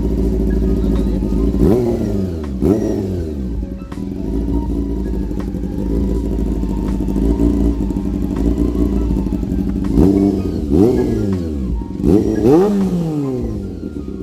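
Motorcycle engine idling through an aftermarket exhaust. It is blipped twice near the start and three more times after about ten seconds, each rev rising and falling back to idle.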